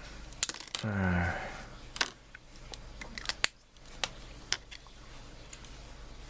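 Scattered sharp clicks and taps of small kit parts and hand tools being handled on a workbench, about half a dozen, with a short low hum from a man's voice about a second in.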